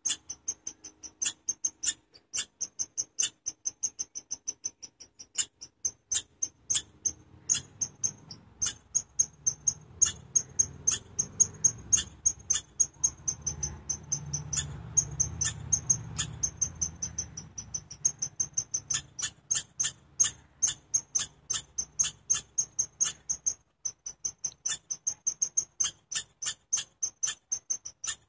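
Chipmunk giving a long series of short, high-pitched chip calls, about two to four a second in runs with short breaks. A faint low rumble runs under the calls for much of the time.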